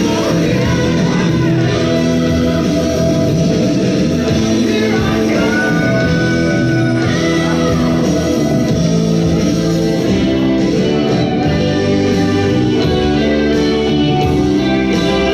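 Loud music with a singing voice and guitar.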